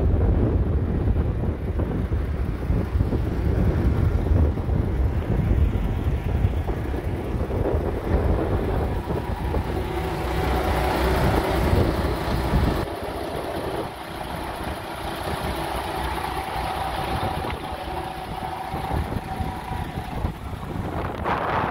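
Wind buffeting the microphone over the steady hum of an idling truck engine; the wind rumble drops away suddenly a little past halfway, leaving the engine hum.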